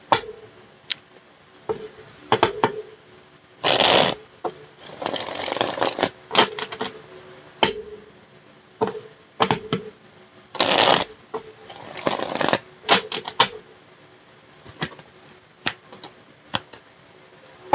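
Tarot cards being shuffled and handled: about four brief rustling bursts of shuffling, with scattered sharp clicks and taps of the cards in between.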